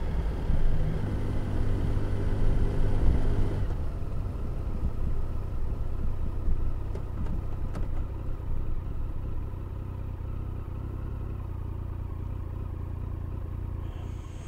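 Triumph Tiger 1050 three-cylinder engine running on the road with wind noise. About four seconds in, the wind dies away and the engine settles to a quieter, steady note.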